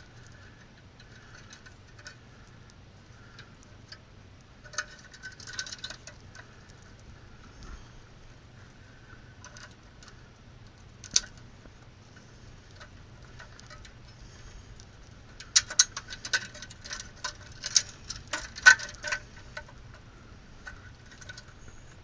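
Scattered clicks and light metallic rattles of hands working stiff wiring into a sheet-metal breaker box and handling tools, with a single sharp click near the middle and a dense run of clicking and rattling in the second half, over a faint steady low hum.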